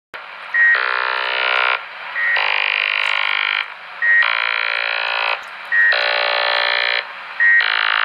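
An unidentified signal received on 27.565 MHz lower sideband through a President HR2510 radio, bleeding over from 27.555: chirping that sounds like musical notes. Each cycle is a short high beep followed by about a second of many notes at once, repeating about every second and a half to two seconds.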